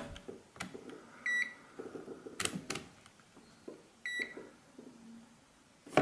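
A digital multimeter gives two short high beeps, about three seconds apart. Between them come sharp clicks and light rattles of the test leads and clips being handled at the compressor terminals.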